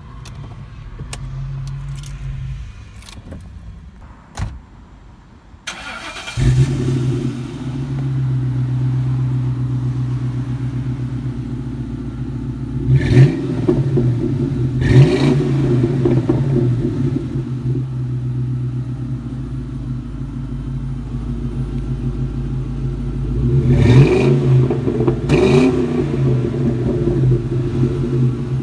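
2000 Ford Mustang GT's 4.6-litre V8 heard from behind the car through a cat-back exhaust with new 2.5-inch Thrush welded mufflers. The engine starts about six seconds in and settles into a steady idle, broken by four quick throttle blips: two around the middle and two near the end.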